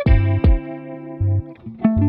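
Background music: electric guitar with effects over a bass line, a chord struck and held about half a second in.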